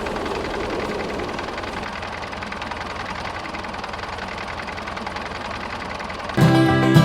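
A small motor running steadily with a fast rattle, easing off slightly. Music with plucked strings starts near the end.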